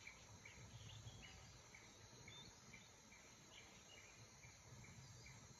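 Near silence: faint outdoor background with small high chirps repeating evenly, about two or three a second.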